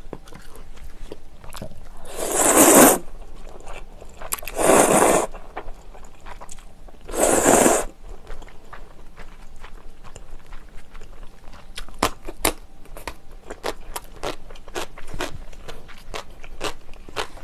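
Close-miked slurping of spicy jjamppong noodles, three loud slurps a couple of seconds apart, then chewing with many small wet clicks of the mouth.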